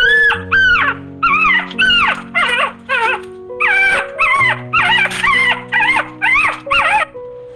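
A dog yipping and whining: about a dozen short, high calls in quick succession, each rising and falling in pitch, over background music with slow held notes.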